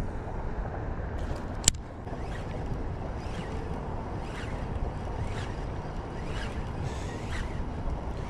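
Baitcasting reel being cranked to retrieve a crankbait, with one sharp click about two seconds in and then faint ticking about twice a second as the handle turns, over a steady low rush of background noise.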